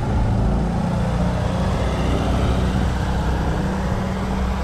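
A motor vehicle's engine running close by on the street, a steady low hum.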